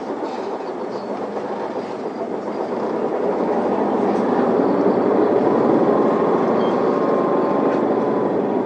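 Isuzu Erga city bus's diesel engine and drivetrain heard from inside the passenger cabin, pulling away from a stop and gaining speed; the running noise grows louder about three seconds in and then holds steady.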